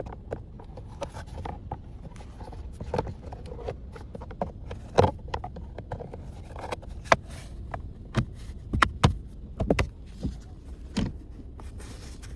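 Irregular clicks and knocks of hands working on plastic steering-column trim and switch parts in a car, a few sharp ones standing out, over a steady low hum.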